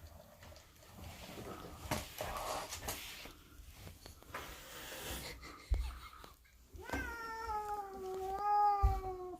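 A domestic cat giving one long, drawn-out meow lasting about two and a half seconds, its pitch sinking slightly toward the end. Before it come scattered rustling and soft knocks.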